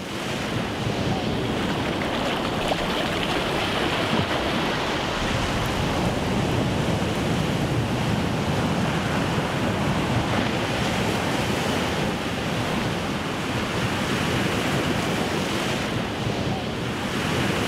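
Sea surf: waves washing up on a sandy beach, a steady rushing wash of water.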